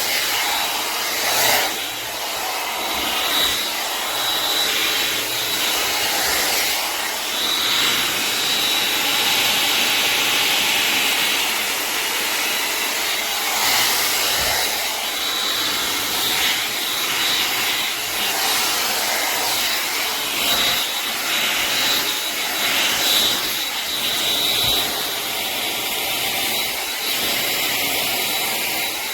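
LANDOT Plus 2.0 hot air brush running steadily, its fan blowing air with a thin high whine.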